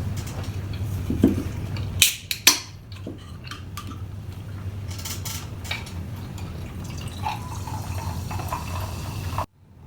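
Close-up sounds of a person eating: wet chewing and mouth sounds, with a few sharp clinks of utensils against a dish about two seconds in. The sound cuts off abruptly near the end.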